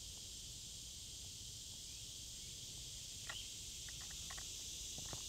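Steady outdoor chorus of insects, heard as a faint high hiss, with a few short clicks a little past the middle.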